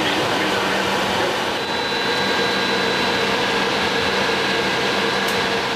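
Steady drone of the AC-130J's four turboprop engines and propellers heard inside the cockpit, a dense rushing noise with a few steady hum tones running through it; a faint high whine joins about two seconds in.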